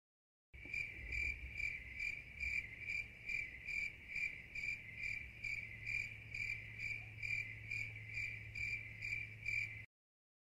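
Cricket chirping: a continuous high trill that pulses evenly about two and a half times a second, starting about half a second in and cutting off suddenly near the end.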